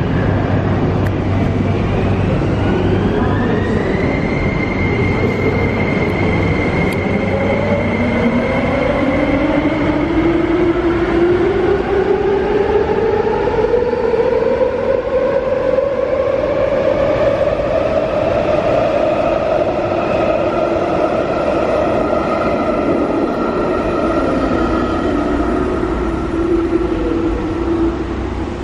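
MTR SP1900 electric multiple unit pulling out of a station. Its traction motors give a whine that climbs steadily in pitch as the train accelerates, over a wheel-on-rail rumble. A higher electric tone rises for the first few seconds, then holds at one pitch.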